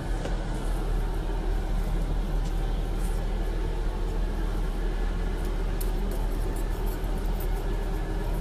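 Steady low rumble of a tour bus's engine and road noise, heard from inside the cabin, with a few faint light clicks.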